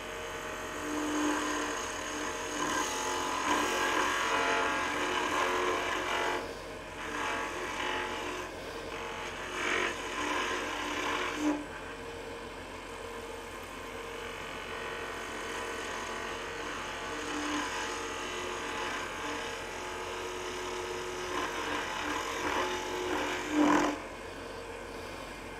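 Wood lathe running with a steady motor hum while a spindle gouge cuts a spinning pear-wood spindle, shaping a bell. The cutting noise swells and fades as the tool is worked, heaviest over the first several seconds, with shorter passes later.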